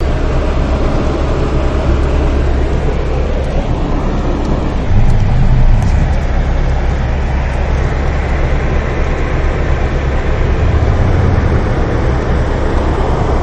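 Heavy rain hissing on a car's roof and windshield, heard from inside the cabin over a steady low rumble from the car and surrounding traffic, with a brief louder rumble about five seconds in.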